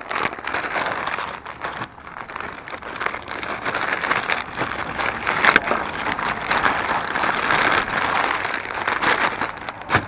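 Plastic packaging bags crinkling and rustling continuously as they are handled and unwrapped by hand, with a louder crackle about halfway through.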